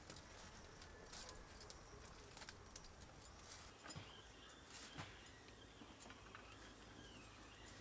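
Near silence: quiet outdoor ambience with scattered faint clicks and light taps.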